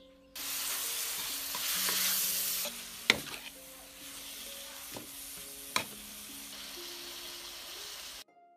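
Food sizzling as it fries in a hot pan, starting and stopping abruptly, with a utensil striking the pan twice, about three and six seconds in.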